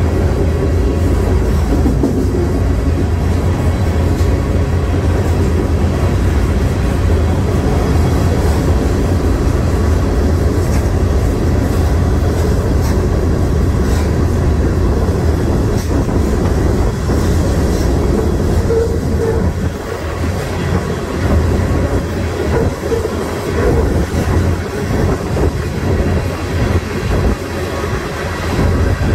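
Freight car rolling along the track, heard from on board: a loud, steady rumble of wheels on rail, which turns more uneven and pulsing about twenty seconds in.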